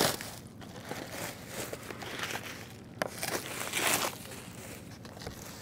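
Plastic packaging bag rustling and crinkling as a model jet wing is handled and pulled out of it, with one light knock about three seconds in.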